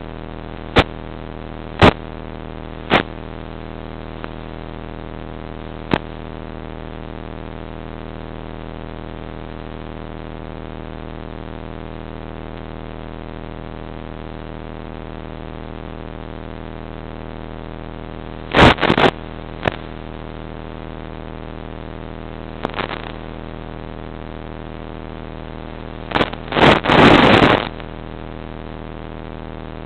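Steady electrical hum on an analog FPV video link's audio channel, with a few sharp clicks in the first few seconds and bursts of static crackle later, the loudest a cluster near the end. The plane's motor is not running.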